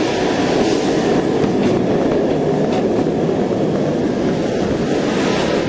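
Steady, loud rush of rain and wind noise on the microphone of a handheld camera.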